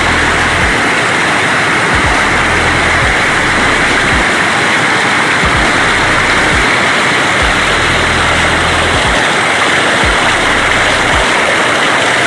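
Floodwater rushing and foaming over a concrete weir close to the microphone, a loud, steady wash of white water.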